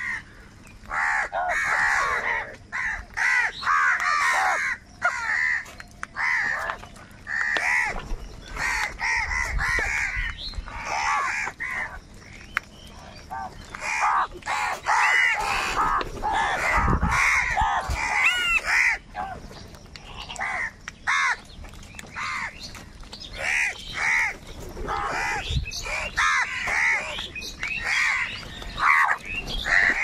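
A large flock of house crows cawing loudly, many calls overlapping in a constant, harsh chorus with brief lulls, as the birds squabble over food.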